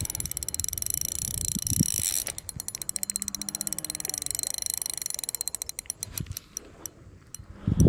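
Fishing reel under load from a hooked carp: a steady high hiss for about two seconds, then a fast run of clicking from the reel's mechanism lasting about four seconds. A short low thump near the end.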